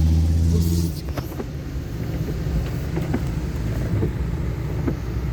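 Car engine running at steady revs, its note dropping away about a second in. Then a steady rumble of the car moving through floodwater in a heavy downpour, with scattered light taps.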